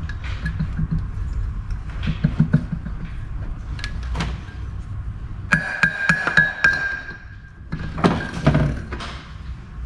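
Metal clinks, knocks and scraping as the rear housing of an NP241 DLD transfer case is pried apart from the case with a screwdriver and worked loose by hand. A ringing metallic scrape comes about five and a half seconds in, and a louder group of knocks comes near the end.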